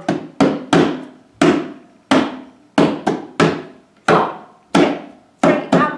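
Hand drum struck with the hands in a loud, simple repeating rhythm meant to sound strong: three quick strikes followed by two slower ones, played twice over.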